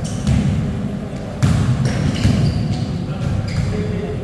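Basketball bouncing on a wooden court floor, several irregular bounces as it is dribbled.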